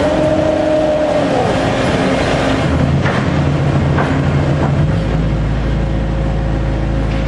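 Omag Phoenix machine travelling along its axis. A steady motor whine falls away about a second in, then a low drone sets in, with two sharp pops about three and four seconds in. The popping during travel is something the owner says is not a mechanical fault: machine settings change how often it happens but do not get rid of it.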